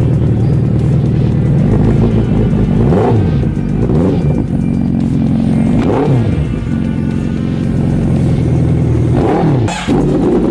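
Inline-four superbike engine running steadily, with three short throttle blips that push the pitch up and back down, about three seconds apart: a light rev.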